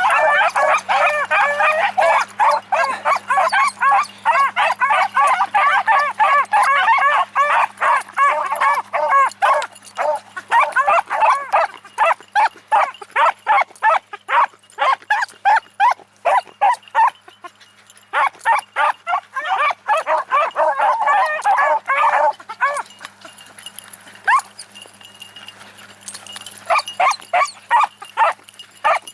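A pack of beagles baying together as they run a trail, many voices overlapping in a dense chorus. The cry thins out about ten seconds in, swells again around twenty seconds, dies down, and picks up once more near the end.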